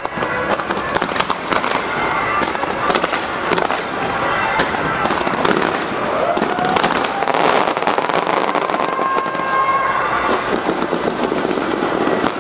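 Aerial fireworks display: a dense, continuous run of bangs and crackling as shells burst overhead.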